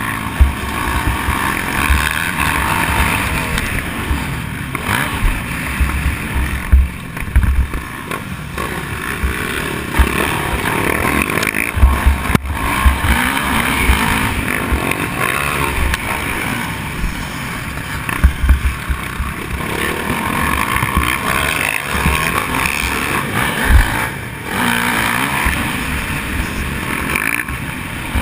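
Dirt bike engine running under way, heard from on board, its pitch rising and falling as it rides the track. Frequent short low thumps of wind buffeting and bumps on the microphone break in throughout.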